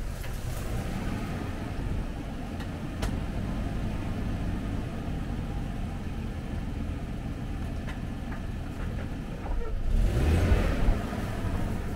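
Land Rover Discovery engine running steadily at crawling speed on a rough forest track. About ten seconds in, a louder rushing scrape rises for a second or so as branches and bushes brush along the bodywork.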